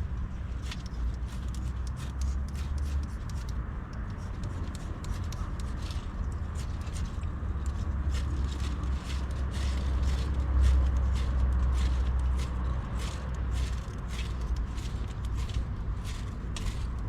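Pine twigs and needles in a campfire crackling and snapping irregularly as they try to catch, over a steady low rumble.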